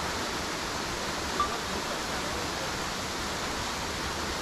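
Waterfall rushing in a steady, even hiss, with one brief sharp tick about a second and a half in.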